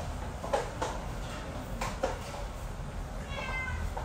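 A small pet gives one brief, high-pitched whining cry about three seconds in. Earlier there are a few sharp knocks, the loudest about half a second and two seconds in.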